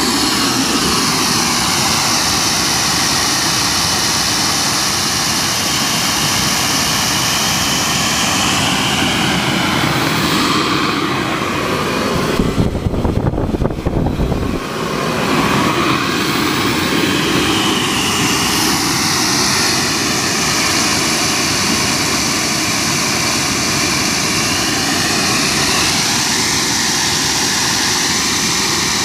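Homemade turbocharger-based jet engine running steadily, a loud whine whose pitch drifts up and down. About halfway through, a loud low rumble takes over for a couple of seconds while the high whine fades.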